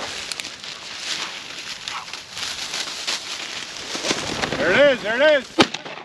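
Rustling of steps through dry standing grass, then a few short calls and a single shotgun shot near the end, which brings down a flushed game bird.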